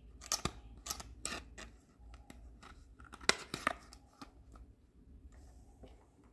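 Small cardboard toy medicine box handled in the fingers and set on a pink plastic toy shelf: a string of sharp clicks, taps and crackles, loudest about three and a half seconds in.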